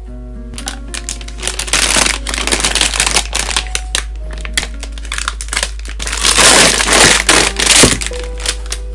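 Clear plastic bag crinkling and rustling as a plastic tumbler is unwrapped by hand, loudest about two seconds in and again in the second half. Soft background music with plucked notes plays underneath.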